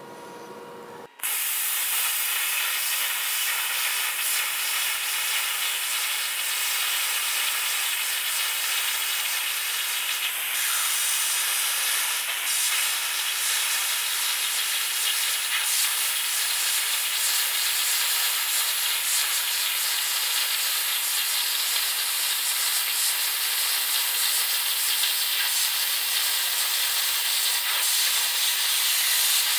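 Plasma cutter cutting through stacked steel plates: a steady, hard hiss of the plasma arc that starts abruptly about a second in and holds evenly.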